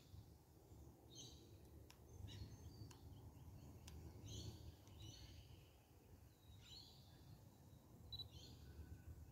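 Faint birdsong: short, high chirping calls repeated about once a second over a low, steady background rumble.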